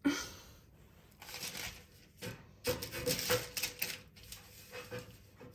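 Hands rolling and pressing crumbly cookie dough on crinkly plastic wrap: irregular rustling with a few light taps, as pieces are shaped and set down by a metal baking tray.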